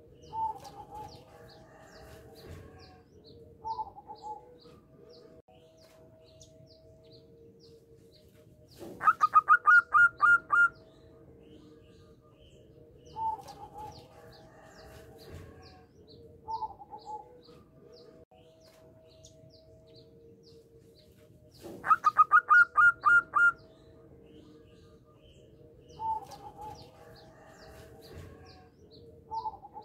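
Zebra dove (perkutut) singing: twice, about twelve seconds apart, a loud quick run of about eight staccato coos, with softer short notes in between. Faint high chirps run in the background.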